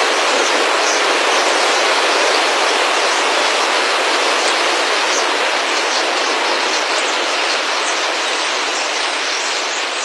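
A huge flock of starlings in murmuration passing close: a steady, loud rush of thousands of wingbeats, with faint high chirps running through it.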